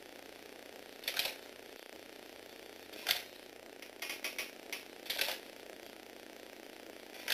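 Motorised Lego Technic walking robot clattering as it walks: short plastic clicks and clacks from its legs, feet and gear train, one every second or two, with a quick run of several clicks about four to five seconds in.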